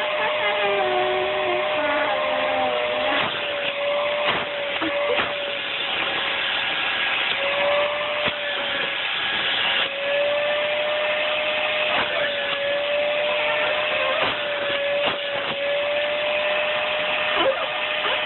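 Vacuum cleaner running with a steady whine, its hose wand held against bare skin. The whine wavers slightly now and then, and there are a few faint knocks.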